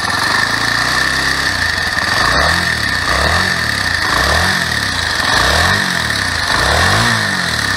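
Honda CBX125 Custom's single-cylinder four-stroke engine running, first at a steady idle, then revved in quick repeated throttle blips that rise and fall. It carries a rumble that the owner suspects comes from the piston, though he hopes it is only the timing chain or its tensioner.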